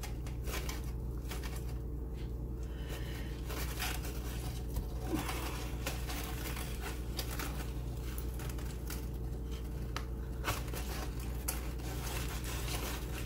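Aluminium foil crinkling and a spoon scraping soft roasted acorn squash flesh from its skin, in short irregular scratchy strokes, over a steady low hum.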